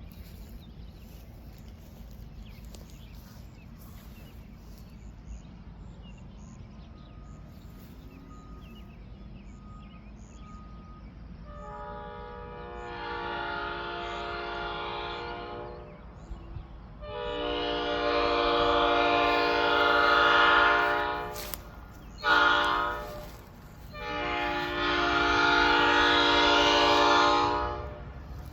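Nathan P5 five-chime locomotive air horn blown on compressed air: after a quiet stretch, a chord of several steady notes sounds in two long blasts, a short toot, then a final long blast, the long-long-short-long pattern of a grade-crossing signal.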